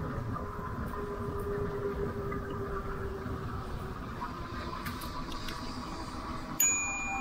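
Steady rumble of wind and tyre noise from a Lectric electric bike ridden at about 18 mph on a paved trail, with a faint steady whine for a few seconds in the first half. Near the end a sudden click, then steady high tones begin.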